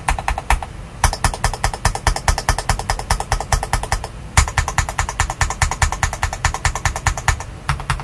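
Fast typing on a modded Feker Alice 80 mechanical keyboard with Feker Holy Panda tactile switches and Olivia PBT Cherry-profile keycaps: a quick, steady stream of keystrokes with a few short pauses.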